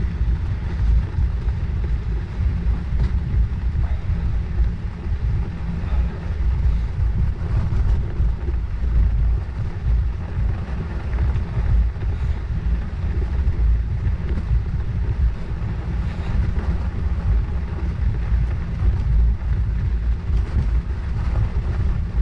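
Wind buffeting a bicycle-mounted action camera's microphone while riding, a steady fluttering rumble over the hiss of the rolling tyres.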